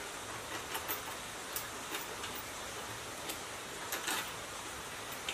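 Light clicks and taps of small parts being handled and fitted by hand inside a diesel engine's cast casing, about eight scattered over a few seconds, over a steady background hiss.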